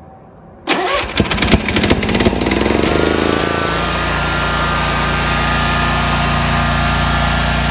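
A Kawasaki 19 hp two-cylinder mower engine is cranked by its electric starter for about a second and a half, catches, revs up and settles into a steady run. It is firing on only one cylinder, which the owner suspects comes from a failing ignition coil.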